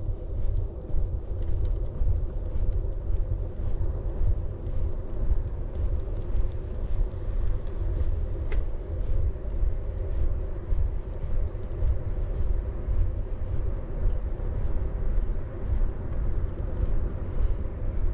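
Steady low outdoor rumble, strongest in the bass and wavering in level, with no distinct events.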